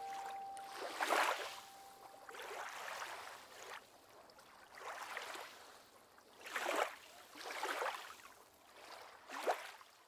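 Small waves lapping against a yacht's hull, a series of soft splashes about once a second.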